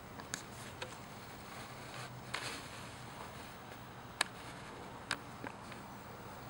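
Shorkie puppies scuffling and playing in long grass: light rustles and scattered small clicks over a faint steady background hum, with one sharp click about four seconds in.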